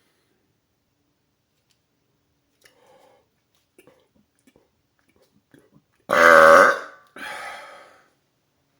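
A man's loud, deep burp about six seconds in, followed straight after by a shorter, quieter second burp. A few faint small sounds come before it.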